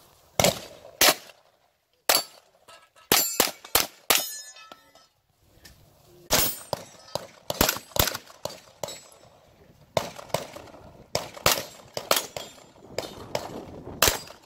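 Strings of rapid gunshots from a pistol-caliber carbine, some with a ringing metallic clang of bullets striking the steel knockdown plates.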